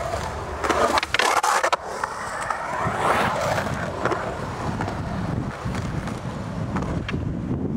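Skateboard wheels rolling over a concrete skatepark surface, a continuous rumble rising and falling as the rider carves, with a few sharp clacks along the way.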